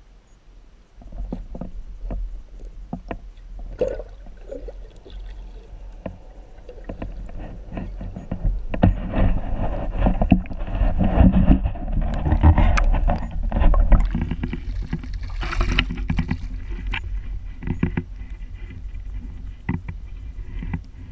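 Water sloshing and knocking around an underwater camera, with a steady low rumble and many sharp knocks. It grows louder from about eight seconds in while a hooked largemouth bass struggles near the camera and is drawn up to the surface.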